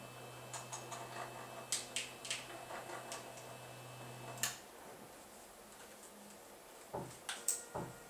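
Bipolar stepper motors of a home-built robotic arm moving the arm, with a steady low hum and irregular ticks, stopping with a click about halfway through. A few sharp knocks follow near the end as the plastic joystick is handled.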